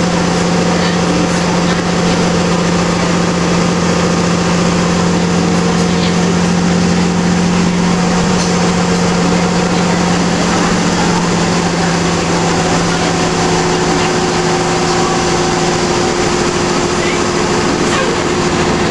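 Inside a Nova Bus LFS city bus: the bus's engine and drivetrain give a loud, steady low drone with road and cabin noise around it. A second, higher steady tone joins about halfway through.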